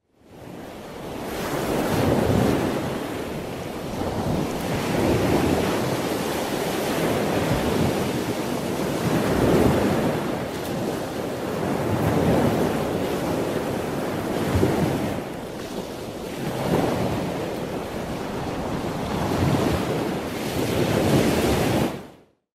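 Ocean surf: waves washing in and out with wind, the rush swelling and ebbing about every three seconds. It fades in at the start and drops away just before the end.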